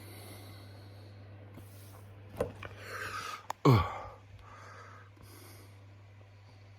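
A man breathing hard through the building burn of a very hot chili pepper. There is a short breath about two and a half seconds in, then a rushing exhale, then a loud vocal sound that slides down in pitch near the middle. A steady low hum runs underneath.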